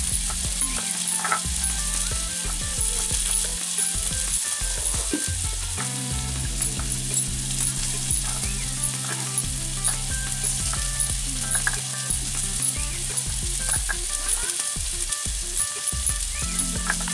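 A hand-held grinding stone (nora) rubbed back and forth over a flat stone slab (shil), grinding onion and spices into a paste, with a steady gritty scraping. Background music with a steady beat plays throughout.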